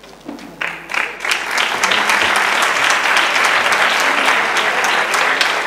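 Theatre audience applauding. A few scattered claps build within about a second to full, steady applause.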